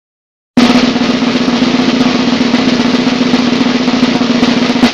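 Snare drum roll, about four seconds of rapid, even strokes at a steady loudness, starting half a second in and cutting off abruptly at the end.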